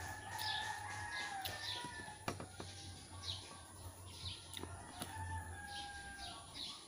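Small birds chirping repeatedly while a rooster crows twice, each crow long and drawn out, slightly falling in pitch: once at the start and again about five seconds in. A few faint clicks are heard between the calls.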